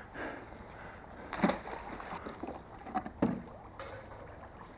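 Canal water sloshing and splashing as a heavy metal scrap find is dragged at the water's edge on magnet-fishing ropes, with two brief louder splashes, about a second and a half in and about three seconds in.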